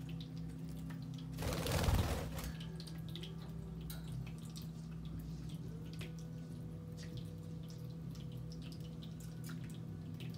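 Pet water fountain trickling and dripping steadily over a low steady hum, with many small ticks and a short rush of noise about a second and a half in.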